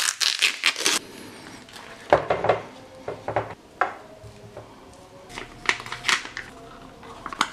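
Plastic film lid peeled off a ration meal tray, then a spoon scraping and knocking rice out of the tray onto a plastic mess tray in a few separate bursts of clicks and scrapes.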